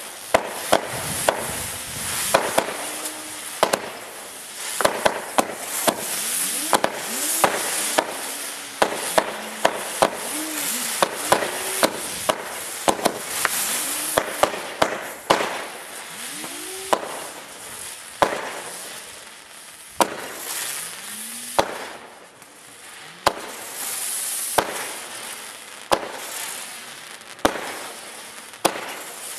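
Keller Orkan and Hurricane firework star batteries firing shot after shot, each a sharp pop followed by the hiss of the burning gold and silver stars. The shots come in quick succession for the first half, thin out after that, and stop near the end.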